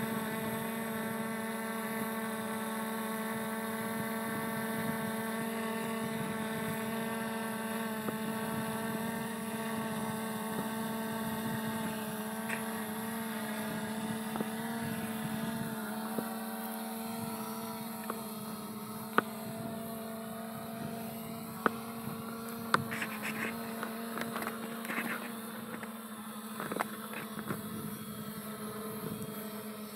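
FiMI X8 SE quadcopter's propellers and motors humming steadily at one pitch while it hovers, with a few sharp clicks in the second half.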